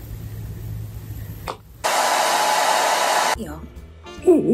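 A loud burst of steady rushing noise that starts abruptly about two seconds in, lasts about a second and a half, and cuts off sharply.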